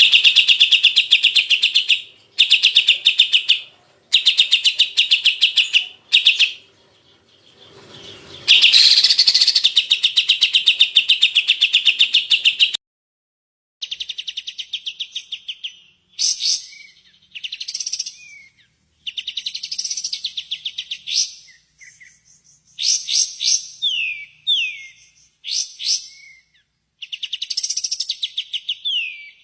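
Songbird song played as a masteran tutor sound for a cucak ijo: loud, rapid buzzing trills in bursts of one to two seconds for about the first thirteen seconds. After a short break come varied chirped phrases with quick downward-sweeping whistles.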